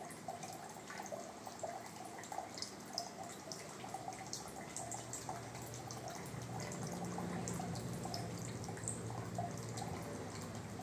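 Water trickling and dripping from the drain outlet of a Hanabishi water dispenser's reservoir into a plastic pitcher, as the container is emptied for cleaning. A low steady hum joins about halfway through.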